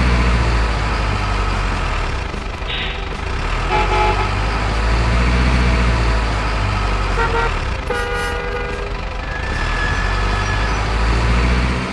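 A truck's engine running with a steady low rumble, with several short horn toots over it about a second in, around four seconds, and again near the seven- and eight-second marks.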